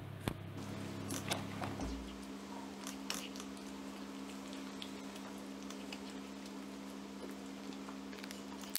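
Cat eating boiled beef liver from a metal plate, chewing and licking: scattered soft clicks and smacks, most of them in the first couple of seconds, over a steady low hum.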